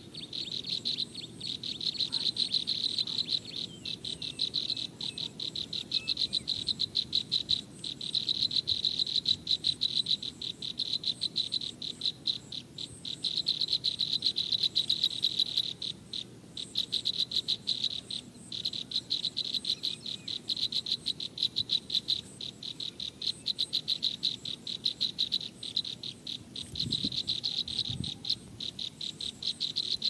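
Insects trilling: a fast, high, pulsing chorus that stops briefly now and then and starts again. A couple of faint low bumps come near the end.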